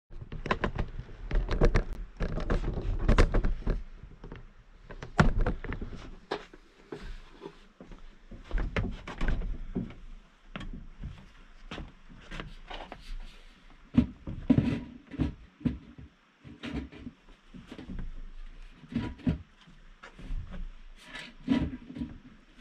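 Irregular knocks, clunks and scrapes as a black metal through-the-wall stovepipe thimble is handled and pushed into a round hole cut in wooden siding.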